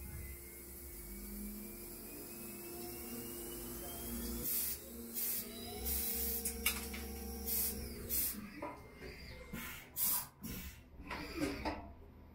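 Haas CL-1 CNC lathe turning brass bar stock under flood coolant: steady spindle hum and coolant spray hiss, with a whine rising in pitch over the first few seconds. Sharp clicks and knocks come through the cut and grow more frequent in the second half, and the spray hiss stops near the end.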